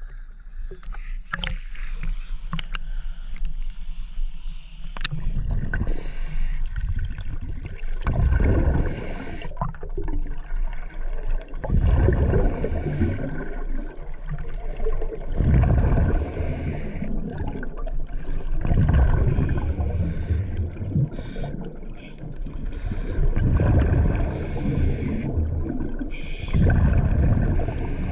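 Splashing at the surface for the first few seconds, then a scuba diver breathing through a regulator underwater: a short hissing inhale followed by a low rumble of exhaled bubbles, repeating about every three to four seconds.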